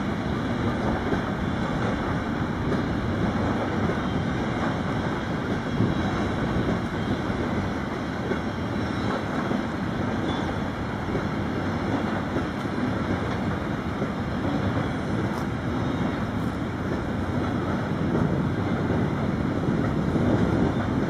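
Wind blowing across the microphone: a steady, gusting rumble with no distinct events.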